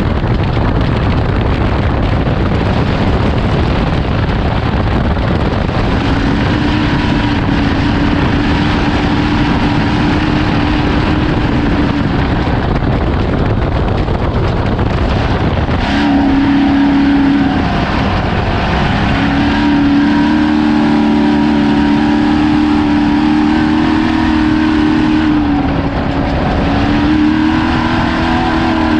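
Ford Ranger desert race truck driving at speed, its engine running hard at steady high revs under a heavy rush of wind, tyre and chassis noise. The engine note drops out under the noise a few times, then comes back.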